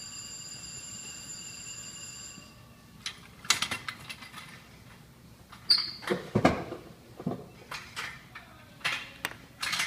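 A steady high-pitched tone for about the first three seconds, then handling noise at a work table: scattered knocks, rustles and a short squeak as things are picked up and set down.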